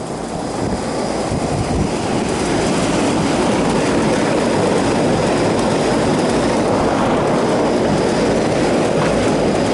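Steady rushing hum of rooftop air-conditioning equipment running, building over the first couple of seconds and then holding level.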